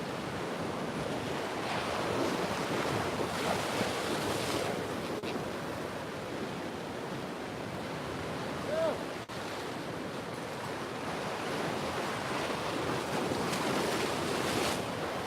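Ocean surf washing steadily, swelling twice, with wind buffeting the microphone.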